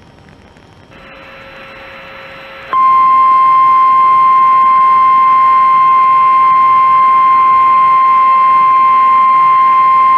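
NOAA Weather Radio 1050 Hz warning alarm tone: one loud, steady single-pitched tone that starts about three seconds in and holds, over radio hiss and after a quieter steady tone. It is the alert that precedes a warning broadcast, here a tornado warning.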